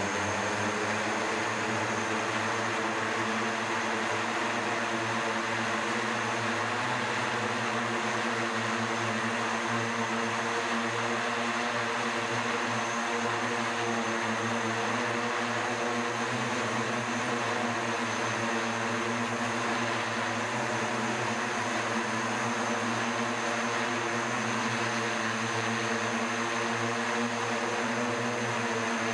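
SkyDrive SD-03 eVTOL's electric rotors, eight propellers in four coaxial pairs, holding it in a low hover: a steady hum of several constant pitches over an even rushing of rotor wash.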